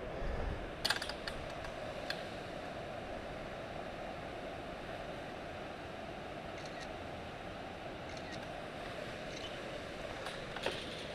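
Steady rushing outdoor noise, with a few light clicks and taps from handling the fishing rod, line and phone while holding up a caught trout.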